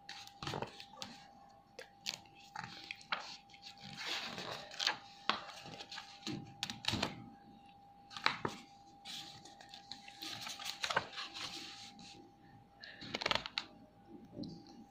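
Pages of a thick paperback workbook being handled and turned by hand: paper rustling and sliding in bursts, with many scattered light clicks and taps. A faint steady tone hums underneath.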